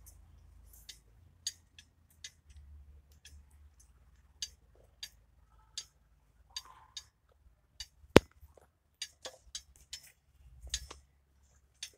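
Irregular sharp clicks and taps, roughly one or two a second, with one much louder click about eight seconds in.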